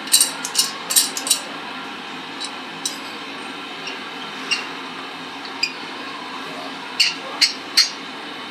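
Sharp metal clinks and taps from the steel bolt-and-threaded-rod tyre spreader being handled and adjusted: a quick run of about five near the start, scattered single ones, then three more a second or so before the end, over a steady background noise.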